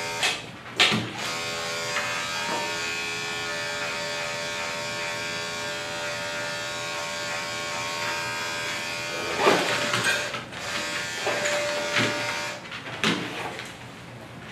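Andis five-speed electric dog clippers running with a steady motor hum as they clip a dog's coat, from about a second in until they stop around twelve and a half seconds in. A few short knocks and handling noises come at the start and near the end.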